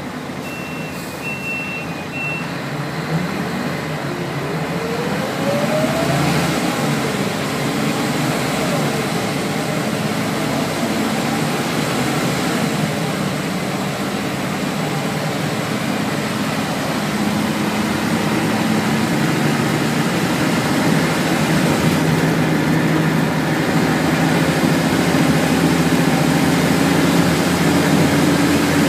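Interior of a 1995 Scania L113CRL bus under way: the Scania DSC11 diesel and ZF automatic gearbox run with a rising whine as the bus pulls away, then a steady drone that climbs slowly as speed builds, over road and tyre noise. Three short high beeps sound near the start.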